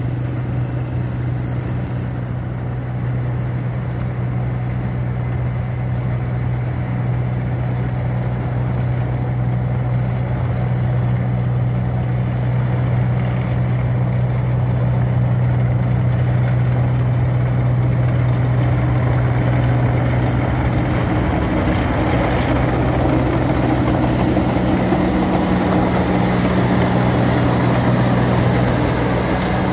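Tracked rice combine harvester's diesel engine running with a steady low drone, growing louder as the machine drives up and passes close by. A busier mix of higher tones joins in about twenty seconds in.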